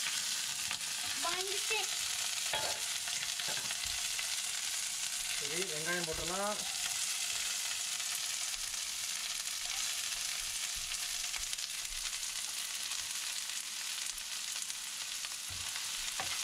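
Chopped onion, green chilli and curry leaves sizzling steadily in hot oil in a non-stick frying pan as they are stirred with a wooden spoon. The onion is frying until it turns translucent.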